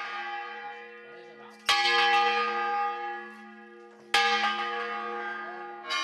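Church bell ringing, struck twice about two and a half seconds apart, each stroke loud at first and then slowly fading away.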